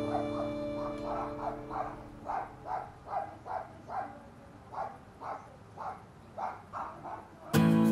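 West Highland White Terrier barking: a run of short, high yaps, about two or three a second. Fiddle-and-guitar background music fades out at the start and comes back in near the end.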